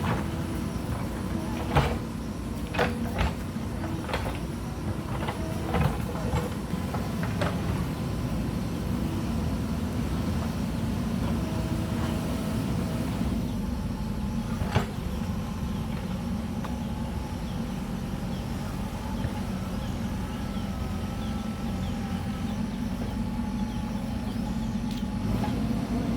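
Mahindra backhoe loader's diesel engine running steadily under load, with a run of sharp knocks and clanks in the first several seconds and one more about fifteen seconds in.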